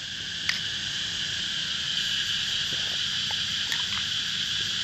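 Steady, unbroken chorus of calling insects and frogs. A single light click comes about half a second in.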